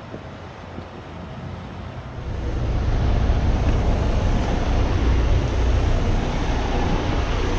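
Diesel engine of a Freightliner semi tractor, heard close up as the truck moves off across the lot; the low rumble grows much louder about two seconds in and then holds steady.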